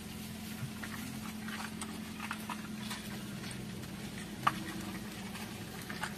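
Suzuki SX4's M16A four-cylinder engine idling steadily on its first run after the catalytic converter was removed, heard from inside the cabin. A few faint ticks, with one sharper click about four and a half seconds in.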